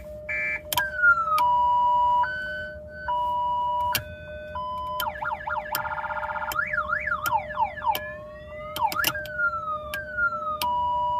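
Electronic siren unit fitted to a car, playing through its speaker and switching between siren tones: falling sweeps, steps between held notes, and a fast up-and-down warble about halfway through, over one constant steady tone.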